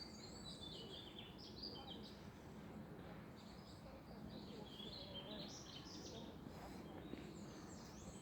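Small birds chirping in short, quick, high phrases that come in scattered bouts, faint over a steady background noise.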